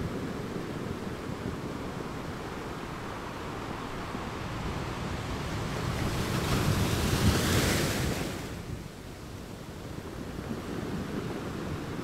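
Rushing sea-water noise. It swells to a louder, brighter hiss about six to eight seconds in, then falls away.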